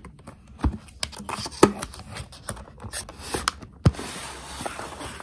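Cardboard product box being opened by hand: sharp clicks and taps as the flap is worked, then a steady rustling scrape near the end as the clear plastic tray slides out of the cardboard sleeve.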